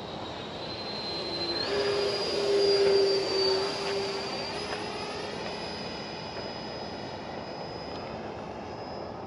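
Freewing F-22 64mm electric ducted fan RC jet flying past, its high fan whine growing louder to a peak about three seconds in and then fading. The whine steps up in pitch a few times.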